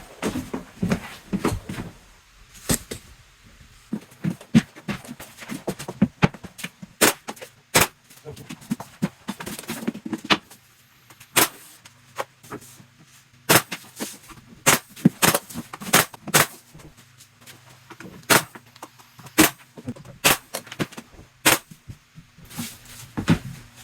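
Nails being driven to fasten door casing trim: a series of sharp, irregular strikes, sometimes in quick runs of two or three, with quiet handling noise between.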